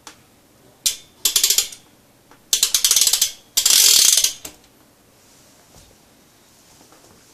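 BSD Backstreet BMX rear hub freewheeling, its pawls ratcheting in fast, loud clicks: one sharp click, then three bursts of rapid clicking, the last the loudest, stopping about four and a half seconds in. The hub is degreased and its pawl springs are changed to make it louder.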